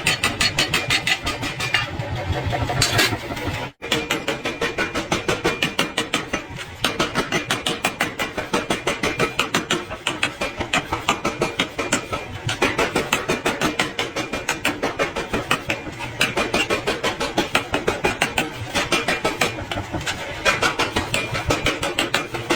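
Mechanical power hammer pounding hot iron in a fast, steady rhythm of several blows a second, with one brief break just under four seconds in.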